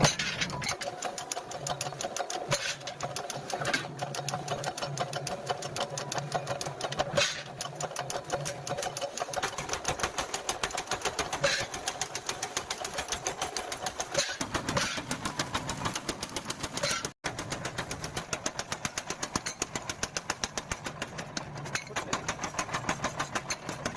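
A workshop machine hammering metal in rapid, even strokes, several a second, over a steady motor hum. It breaks off briefly about two-thirds of the way through, then carries on.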